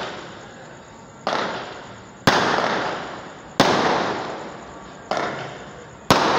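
Aerial fireworks bursting overhead: five sharp bangs at roughly one-second intervals, each followed by a long echoing fade.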